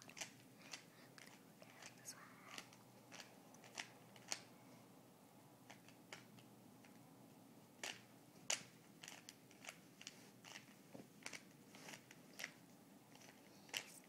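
Rubik's Cube being turned by hand: quiet, irregular plastic clicks as its layers are rotated, with a lull of about three seconds midway.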